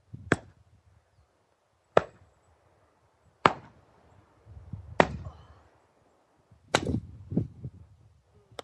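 An axe splitting logs: six sharp strikes into the wood, about one and a half seconds apart. Low thuds follow some of the blows, and a knock or two comes after the fifth.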